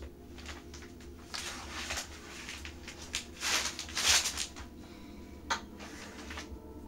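A knife slitting open a plastic mailer bag, with the plastic rustling and tearing in several short bursts. The loudest burst comes about four seconds in, and there is a sharp click about five and a half seconds in.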